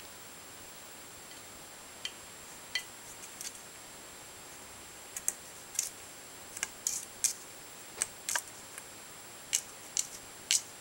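Faint, irregular small clicks and ticks, about a dozen spread over several seconds, as a tabby kitten shifts with its head inside a metal colander.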